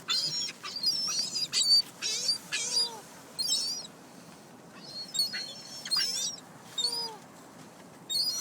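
A flock of birds calling, with rapid, high-pitched squeaky chirps in clusters. The calls run through the first four seconds, pause, and come again from about five to seven seconds in.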